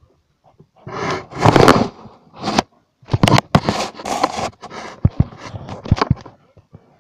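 Handling noise on a phone's microphone: loud scraping and rubbing in bursts, with sharp clicks, as the phone is moved and gripped.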